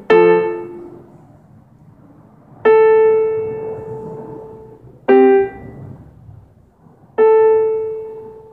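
Electronic keyboard with a piano voice playing slow, spaced chords: four struck in turn, the second and last left to ring and die away over about two seconds, the third let go quickly.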